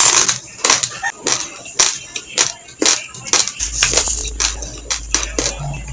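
Raw long-grain basmati rice crunched between the teeth in close-up chewing, sharp crunches about two to three a second in an uneven rhythm.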